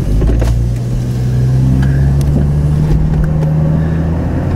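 Car engine and road noise heard from inside the cabin as the car pulls away from a stop and accelerates, a loud low hum that edges slightly higher in pitch.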